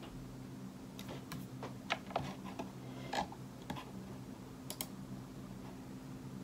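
Irregular taps and clicks of typing on a computer keyboard, a few keystrokes at a time, over a steady low hum.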